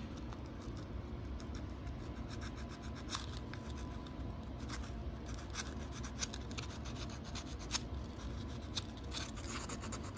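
Sandpaper rubbing by hand over a PLA 3D print coated with glazing putty, in short, quick, irregular scratching strokes.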